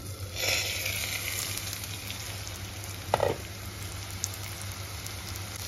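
Potatoes and dill leaves sizzling as they fry in an aluminium kadhai on a medium flame; the sizzle grows brighter about half a second in as the glass lid is lifted off. A short metallic clink about three seconds in.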